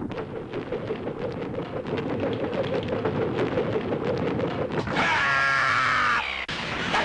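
Anime fight soundtrack: a monster's growling roar over a rushing, crackling noise, then a shrill, high-pitched screech lasting about a second, starting about five seconds in.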